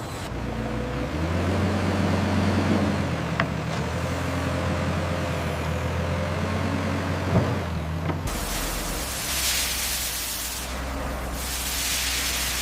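Sawmill machinery running with a steady low hum, with a sharp click and a knock partway through. About eight seconds in, the sound changes abruptly to a lower rumble with two long bursts of hissing.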